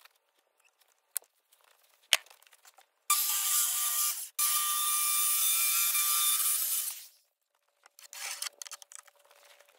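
A corded handheld power tool runs against a rough-sawn wooden slab for about four seconds, starting about three seconds in and stopping briefly just after the fourth second. A few light knocks and clicks follow near the end.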